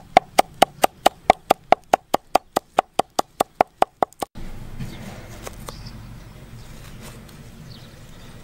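Kitchen knife chopping green herbs on a wooden chopping block: a steady run of sharp knocks, about four a second, that stops about four seconds in. After that comes quieter, softer knife cutting through a lime.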